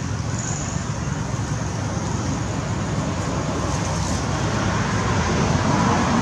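Steady outdoor background noise: a low rumble under a constant high hiss, growing a little louder near the end.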